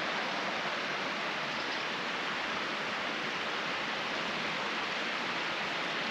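A steady, even rushing noise with no gusts, clicks or breaks.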